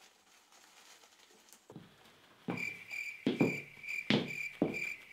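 A cricket chirping steadily, about three chirps a second, starting about halfway through after a near-silent opening. Brief rustles of shirt fabric brushed close against the microphone come in with it.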